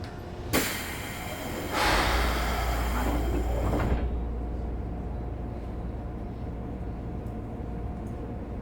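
Sliding doors of a Keikyu 1500 series commuter car closing with no door chime: a knock about half a second in, then a hiss of air for about two seconds that cuts off suddenly, over the car's steady low hum.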